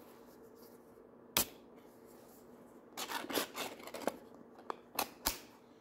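Round metal pipe-tobacco tin being opened by hand: a sharp click about a second and a half in, then scraping and rustling as the lid is worked off, and a few light metallic clicks near the end.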